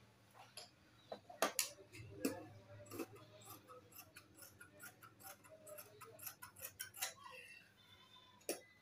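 Large fabric scissors snipping through printed dress fabric along a marked line: an irregular run of crisp clicks as the blades close, with a few louder snips.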